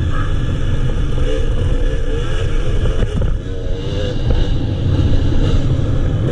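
Enduro motorcycle engine running hard on a dirt trail, its revs rising and falling with the throttle, easing off briefly a little past halfway before pulling again.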